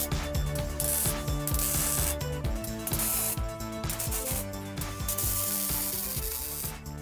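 Background music with a bass line and a busy, clicking, ratchet-like rhythm.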